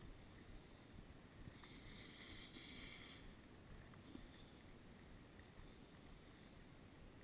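Faint, muffled rumble of skis sliding over packed snow, with a brief brighter hiss about two seconds in as the skis scrape the snow.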